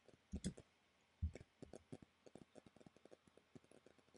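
Faint clicking of computer keyboard keys: a few firmer keystrokes in the first second and a half, then a run of light, quick clicks.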